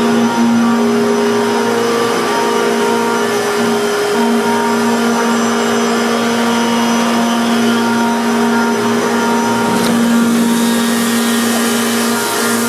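2000 Haas VF-3 CNC vertical machining center running a part program: a loud, steady machine hum with a few held whining tones, and a single short click about ten seconds in.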